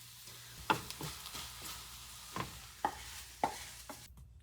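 A utensil clinking against a dish in about four sharp clinks spaced out over a few seconds, with fainter taps between them, over a faint hiss.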